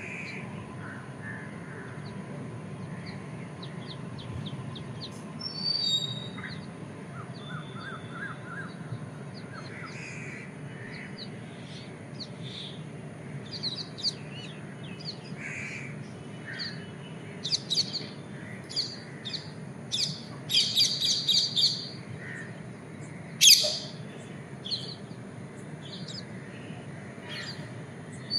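Several birds chirping and calling on and off over a steady low background rumble. The calls come thickest about two-thirds of the way through, with one loud, harsh call soon after.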